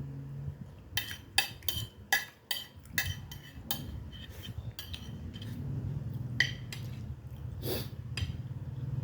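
Metal cutlery clinking and scraping against plates and bowls during a meal: a quick run of sharp clinks in the first few seconds, then scattered ones, over a low steady hum.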